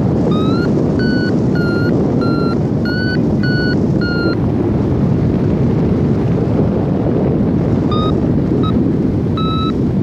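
Wind rushing over the microphone in flight, with a paragliding variometer beeping above it: a run of about seven short beeps, roughly one and a half a second, in the first four seconds, then a few more near the end. The beeps are the vario's climb tone, the sign of rising air.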